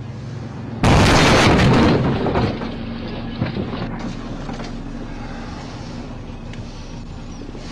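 A vehicle ramming the rear of a stopped police car, heard from inside the struck car: a sudden loud crash about a second in, lasting about a second and dying away in clattering debris, over a steady low hum.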